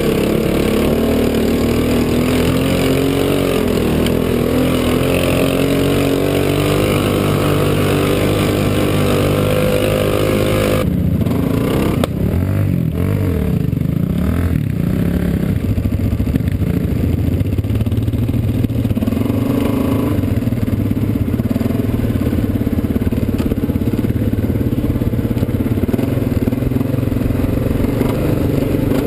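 Quad bike (ATV) engine running under load, heard from the rider's seat, its pitch slowly rising through the first part. About eleven seconds in the sound changes abruptly to a lower, rougher, steady engine note.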